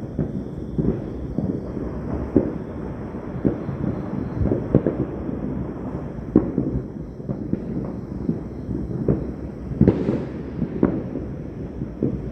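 Fireworks and firecrackers going off in an irregular stream of bangs over a continuous low rumble. The loudest bang comes about ten seconds in.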